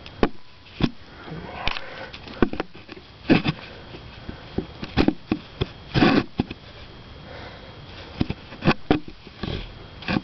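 Primer bulb on a Toro push mower being pressed several times, each press giving a short puff of air, mixed with irregular knocks from handling the mower.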